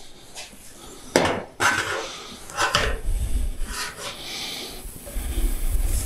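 Painted steel roofing sheet being knocked and handled while it is shaped with hand tools: a few sharp metallic knocks, the loudest a little over a second in, with rattling and rubbing of the sheet between them.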